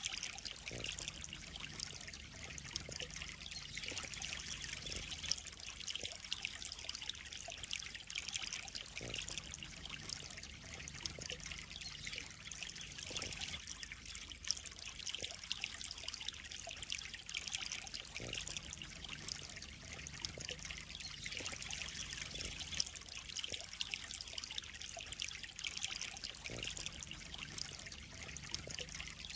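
Pond water trickling and splashing steadily, a continuous bright patter of falling water.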